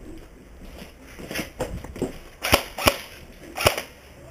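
Umarex UMP .45 airsoft electric gun with silencer firing single shots: a few faint knocks, then three sharp cracks in the second half, two close together and one about a second later.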